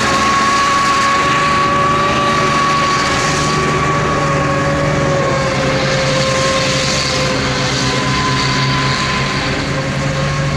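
Tiger 1 tank on the move: its V12 petrol engine running steadily under load, with a steady high whine held over the rumble, as the tracks churn through dirt.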